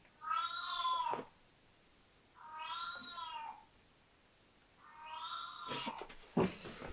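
A pet cat screaming: three loud yowls about a second each, every one rising then falling in pitch, with pauses between. A few sharp knocks near the end.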